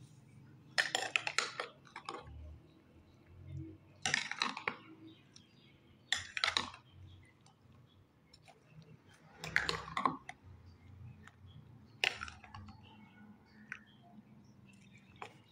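A serving spoon stirring chopped fruit chaat in a glass bowl, clinking and scraping against the glass in six short bursts a few seconds apart.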